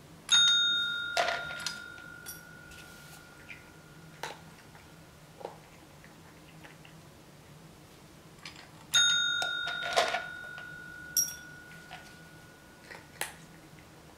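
Desk-style service bell struck twice by a cat's paw, about eight and a half seconds apart, each ring a clear ding that fades out over several seconds; it is the trained cat's signal asking for a serving of kibble. A few small clicks and taps follow each ring.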